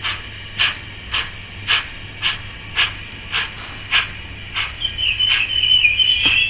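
Steam locomotive chuffs played by a model train's sound decoder, about two a second and slowing a little, then a wavering high squeal of brakes as the locomotive stops, with a single clank near the end.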